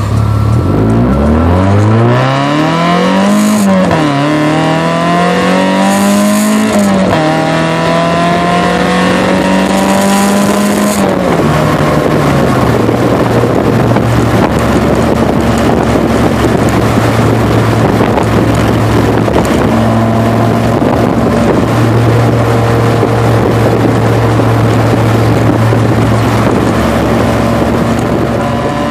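1.6-litre Mazda Miata four-cylinder engine through a Flowmaster DBX exhaust, heard from inside the cabin, pulling hard to high revs. Its pitch climbs and drops back twice at upshifts. About eleven seconds in it eases off to a steady, lower-rev cruise drone.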